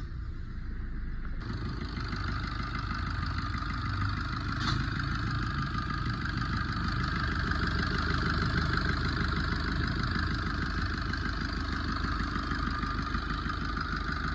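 A 2019 Maruti Swift Dzire's engine, 221,000 km on it, starting in the first second or two and then idling steadily.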